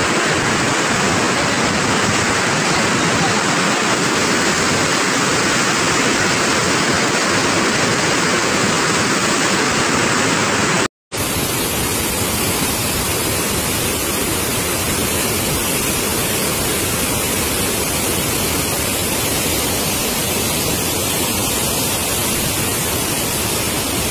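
Floodwater rushing through a swollen river and over a weir: a loud, steady, dense rush of water. A split-second break about eleven seconds in, after which the rush goes on slightly quieter.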